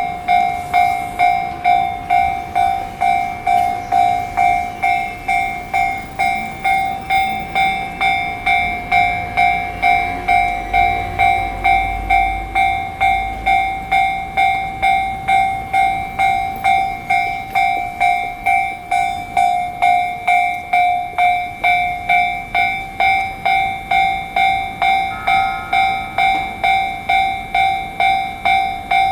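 Japanese railway level-crossing alarm ringing its repeated electronic 'kan-kan' bell, a bit under two strikes a second without a break. A train's low rumble comes through the crossing from about nine to thirteen seconds in.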